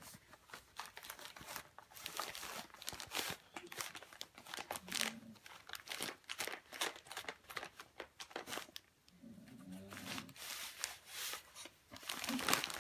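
Christmas wrapping paper crinkling and tearing in irregular bursts as a dog noses and pulls at a wrapped present.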